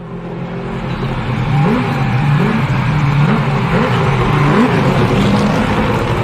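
Car engine running loud and revving, its pitch rising in repeated sweeps over a constant roar; it starts abruptly as the music cuts off.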